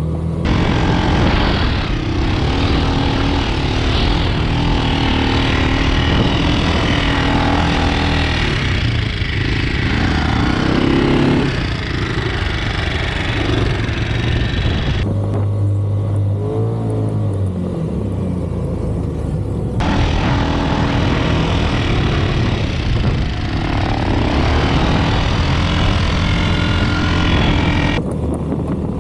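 Off-road vehicle engine running under load through sand dunes, its pitch rising and falling with the throttle. About halfway through it eases to a steady low drone for a few seconds, then picks back up.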